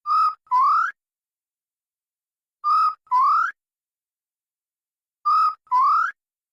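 Grey peacock-pheasant calling: a two-note whistle, a short level note followed by a longer rising one, given three times about every two and a half seconds.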